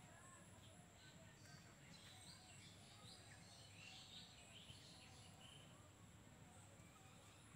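Near silence: faint outdoor ambience with distant birds chirping now and then, most of the short calls falling in the middle, over a low rumble.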